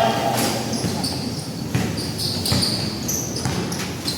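Basketball game on an indoor court: the ball bouncing on the floor several times, with short high squeaks of sneakers between the bounces.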